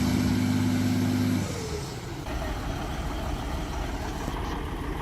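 Heavy construction equipment engine running with a steady hum. About one and a half seconds in, the hum drops away to a quieter, rougher engine rumble.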